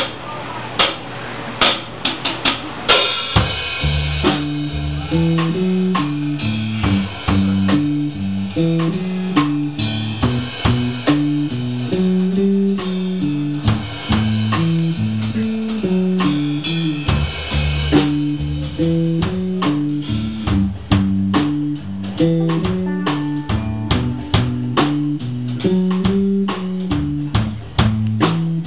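Rock band playing live on electric guitars, bass guitar and drum kit. A few separate drum hits open, then the full band comes in about three seconds in, with a moving bass line under steady drumming.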